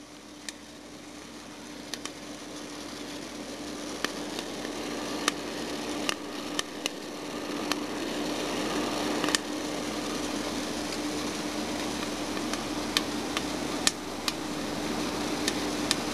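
Turbo-oven coffee roaster running, its fan giving a steady hum and rush of air that grows louder, while roasting coffee beans crack with scattered sharp pops that come more often as it goes on.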